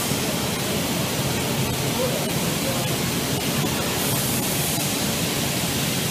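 Steady, even hiss of factory machinery running.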